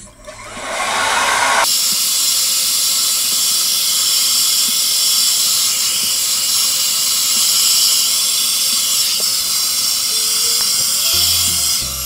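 Handheld hair dryer blowing hot air onto hair roots, a steady rushing hiss with a motor whine. It comes on just after the start, grows louder a moment later, then runs evenly.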